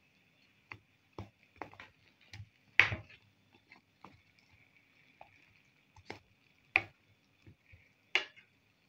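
Silicone spatula tapping and scraping against a non-stick frying pan while spooning sugar syrup over fried dough pieces, in irregular knocks, the loudest about three seconds in. A faint steady high-pitched hum runs underneath.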